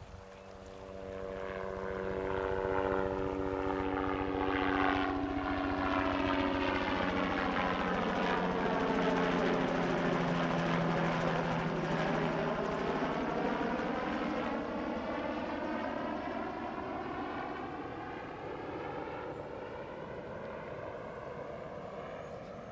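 Aircraft flying over: a steady engine drone that swells over the first few seconds, drops in pitch as it passes near the middle, then slowly fades.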